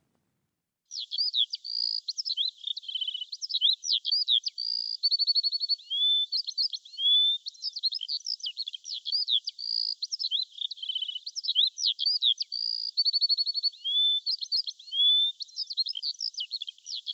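Songbird chirps, trills and short whistles, starting about a second in. The same phrase sequence repeats about every six seconds, as a looped birdsong recording.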